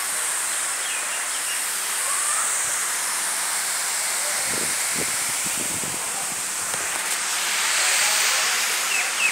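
Steady rushing of a waterfall, water pouring down a rock face, with a few short high chirps near the end.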